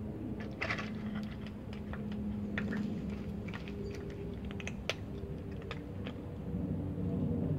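Cats eating dry kibble and pawing it out through the neck of a plastic water bottle: irregular crunches and clicks of pellets against plastic, over a low steady hum.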